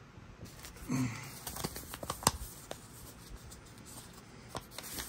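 A folded paper slip being handled: light rustling and crinkling with scattered small clicks, one sharper tap a little over two seconds in.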